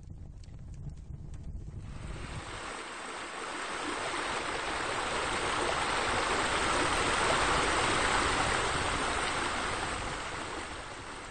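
Water pouring and splashing steadily into a pool, a rushing noise that swells to its loudest around the middle and eases off near the end. A low rumble comes before it in the first two seconds.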